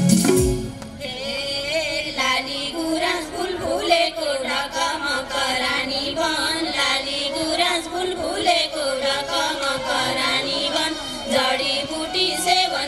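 Women singing a Nepali Teej folk song, the melody wavering and bending. The drumming and rattling drop out in the first second, leaving the voices over a light accompaniment.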